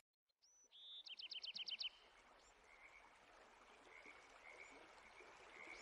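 High animal chirps, from a bird or frog: a single rising note, then a quick run of about eight chirps about a second in. A faint hiss follows, with a few fainter chirps.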